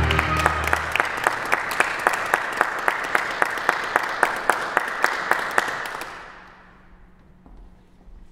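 Ensemble players clapping their hands together in a steady rhythm, about three claps a second, over a steady hiss. Low instrument notes sound briefly at the start, and the clapping and hiss fade away about six seconds in.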